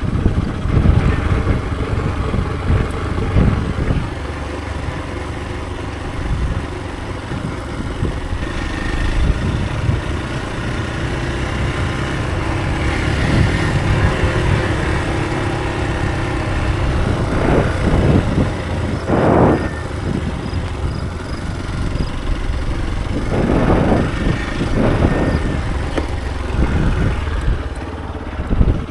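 Hero XPulse 200 4V's single-cylinder engine running continuously, with a few louder surges about two-thirds of the way through.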